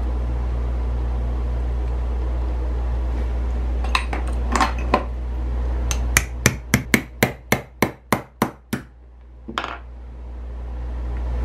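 Hammer tapping a pin punch to drive the ejector pin out of a Savage 720 shotgun's steel breech block: a few single taps, then a quick run of about a dozen sharp metallic taps at roughly four a second, and one last tap near the end.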